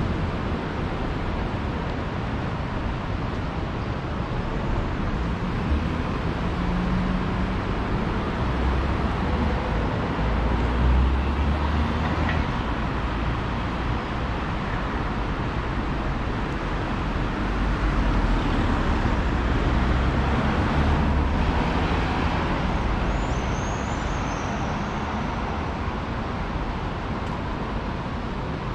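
Street ambience along a town road: steady traffic noise with low rumbles of passing vehicles, strongest around ten and twenty seconds in.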